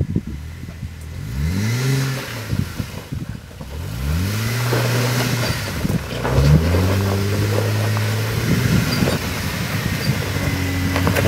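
Lifted Jeep Wrangler's engine revving in surges as it crawls over rocks: three times the pitch climbs and levels off, then it holds steady, growing louder as the Jeep comes close.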